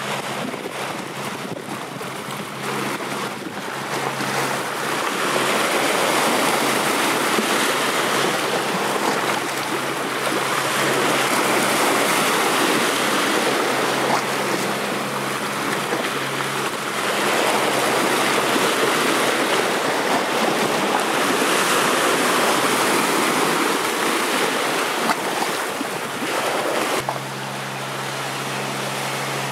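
Small sea waves breaking and washing over shoreline rocks, the surge swelling and easing several times.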